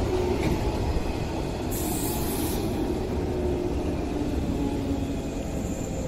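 Electric commuter train running along a station platform: a steady rumble of wheels and motors with a low hum, slowly easing, and a short high hiss about two seconds in.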